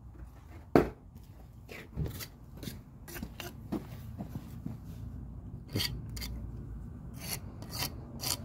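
Steel pointing iron scraping and chopping excess hot lime mortar out of brick joints in a series of short, irregular strokes, with one sharp knock about a second in. The mortar has firmed enough to come off cleanly in lines without smearing.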